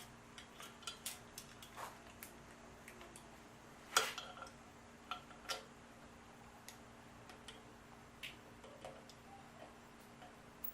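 Faint, irregular metallic clicks and taps from hand tools and fasteners being worked on an engine's cylinder head, with one louder clack about four seconds in, over a faint steady hum.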